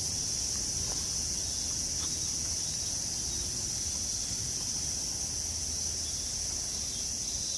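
A steady, high-pitched chorus of cicadas, unbroken throughout.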